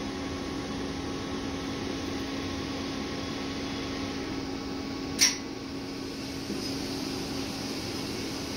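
Siemens Symbia S SPECT gamma camera's gantry drive running with a steady hum as it rotates the two detector heads around the ring. A single sharp click sounds about five seconds in.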